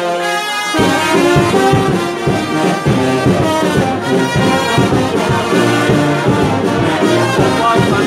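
Street brass band playing: a held brass chord, then about a second in the full band comes in with a steady beat.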